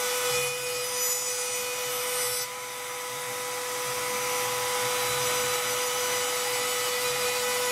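Table-mounted router running at speed with a steady high whine while its bearing-guided bit trims the edge of a small wooden disc. The cutting noise changes about two and a half seconds in.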